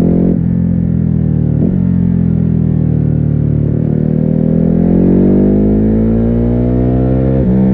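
Ducati Hypermotard 950's 937 cc L-twin on its stock exhaust, accelerating through the gears. The revs drop at upshifts about half a second in and again near two seconds, sag a little, then climb steadily for over three seconds before another shift near the end. Heard muffled, through a phone wrapped in a scarf inside the rider's backpack.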